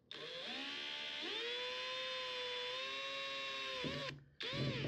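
Electric hand drill whining as it spins up and runs at a steady pitch while drilling a starter hole through the aircraft's sheet-aluminium fuselage skin. About four seconds in it winds down, then gives a short second burst near the end.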